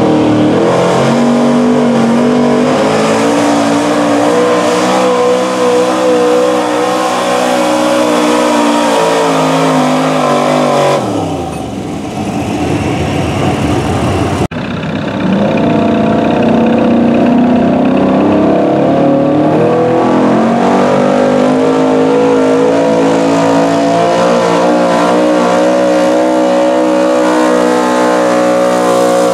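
Gas pickup-truck engines at full throttle, dragging a weight-transfer pulling sled. The first, a Chevrolet, holds high revs and then falls off about 11 seconds in as its pull ends. After an abrupt cut, a Dodge's engine winds up and holds high revs to the end.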